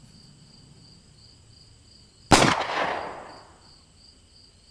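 A single revolver shot fired into the air as a warning, about two seconds in, its echo dying away over a second or so. Crickets chirp steadily throughout.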